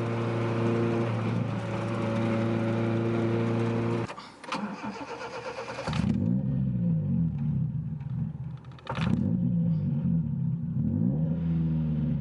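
Toyota Corolla AE70's 4A-GE engine running steadily, cutting out about four seconds in, then starting again about two seconds later and running with its pitch rising and falling, with a sharp click near the end. The engine has been running rich and dying, a fault the mechanic suspects lies in a poor MAP sensor connector pin.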